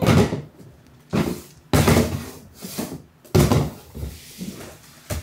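Four sharp knocks and clatters about a second apart, each dying away quickly.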